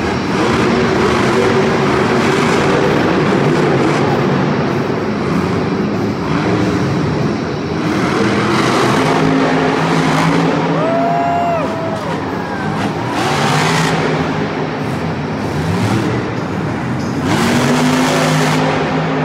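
Monster truck engines (supercharged V8s) running and revving as several trucks drive around a dirt arena, the pitch rising and falling, with louder revs several times.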